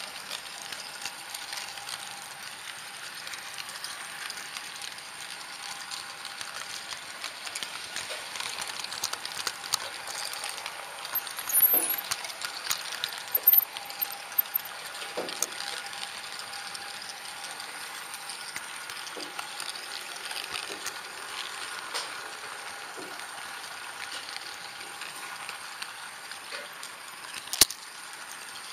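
HO-scale model train running along its track, picked up by a camera riding on the train: a steady running noise with small irregular clicks and rattles from the wheels on the rails, and a sharp click near the end.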